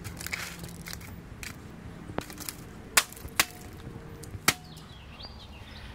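A hammer striking a laptop, cracking its plastic case, keyboard and shattered screen. A few soft knocks come first, then three sharp cracks about three, three and a half and four and a half seconds in.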